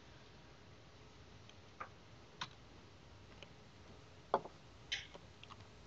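A few sparse, faint computer keyboard keystrokes, single clicks spaced irregularly, the loudest a little past four seconds in.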